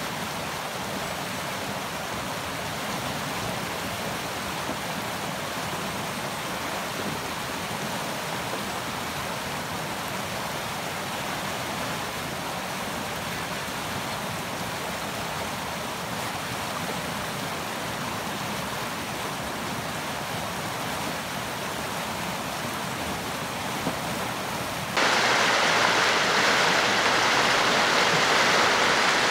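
Creek in flash flood: swollen, muddy water rushing and churning around tree trunks in a steady roar of white water. About 25 seconds in the rushing jumps suddenly louder and brighter and holds there.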